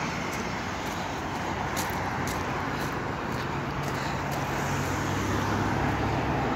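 Road traffic: cars driving past on a busy road, a steady wash of engine and tyre noise, with one vehicle's engine hum growing stronger in the second half.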